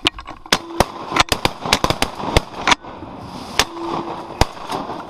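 A rapid, irregular series of sharp pops and knocks, about a dozen in the first three seconds, then two more spaced out later, with a brief low steady tone twice among them.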